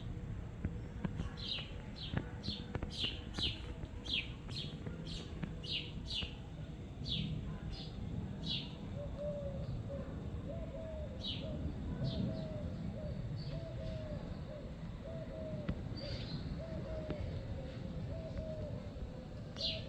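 A small bird chirping: a quick run of short, falling chirps, about two or three a second, then only a few scattered chirps. From about nine seconds in, a soft low note repeats over and over beneath it.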